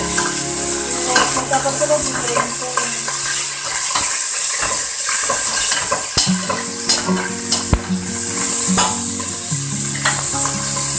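Raw pork pieces sizzling as they sauté in a stainless steel pot, with metal tongs clinking and scraping against the pot as the meat is turned.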